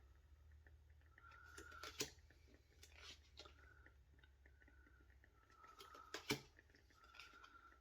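Faint handling noises of tarot cards: soft clicks and taps, with two sharper taps about two and six seconds in, over a low hum.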